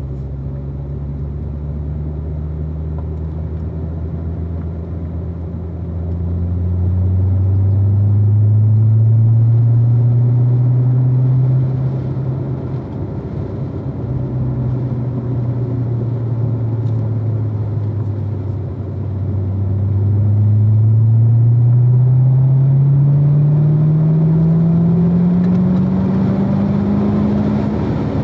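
2016 Corvette Z06's supercharged 6.2-litre V8 running hard on track. The engine note climbs through the revs, eases off, then climbs again, twice over.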